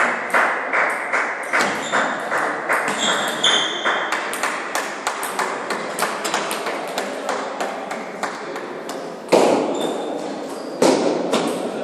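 Table tennis ball clicking in a quick, steady rhythm, about two to three a second, as it strikes the table and bats, with two louder knocks near the end.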